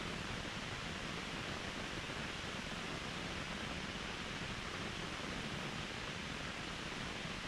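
Mountain waterfall rushing: a steady, even noise of falling water that doesn't change.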